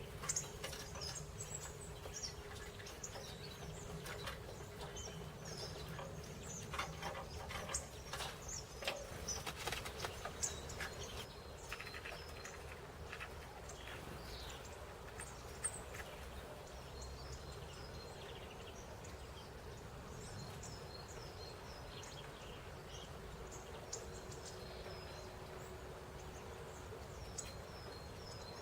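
Small songbirds chirping at a winter feeder: many short, high calls, busiest in the first half, with a few sharp clicks and flutters among them over a steady low background rumble.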